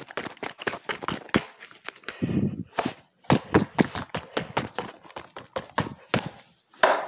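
Close handling noise from a soft squishy toy being pressed and rubbed against a phone: a fast, irregular run of taps, scrapes and clicks, with a duller thump about two and a half seconds in.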